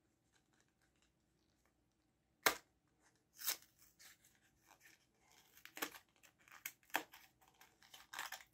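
Packaging being torn open and handled, with short scratchy, crinkling tearing sounds and a sharp click about two and a half seconds in.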